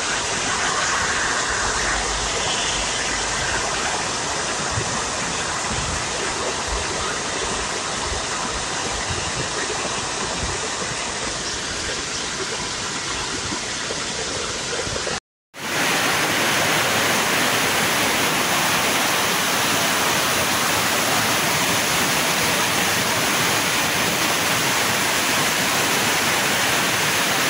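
Heavy rain and floodwater rushing along a street, a steady hiss of water throughout. It cuts out for a moment about halfway, then carries on brighter.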